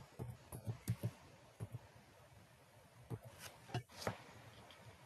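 Faint computer keyboard keystrokes: a quick run of taps in the first second, then a few more about three to four seconds in.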